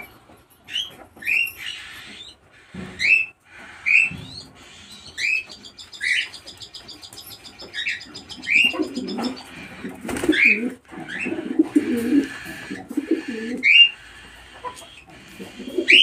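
Cockatiels giving short rising chirps, repeated about once a second, with a fast rattling chatter from around six seconds in. Pigeons join in with low cooing from about halfway through.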